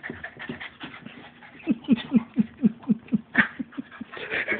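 Boston terrier panting hard in quick, whiny breaths, about four to five a second, each with a falling squeaky note, from the strain of shoving a heavy piece of petrified wood.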